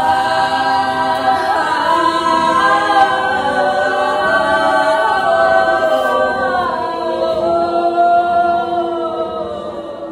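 Three women's voices singing a cappella together in long held notes that shift slowly in pitch, fading away near the end.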